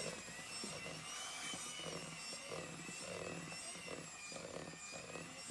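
Electric hand mixer running steadily, its beaters churning thick cake batter in a plastic bowl, with a steady motor whine.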